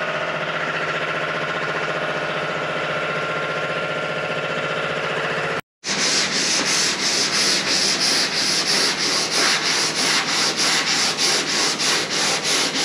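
A steady drone of many held tones, then, after a brief cut, sandpaper rubbed back and forth on a car body panel in even strokes, about three a second. The sanding is block-sanding of a contrast-coated primer or filler layer, done to show up the high and low spots in the panel.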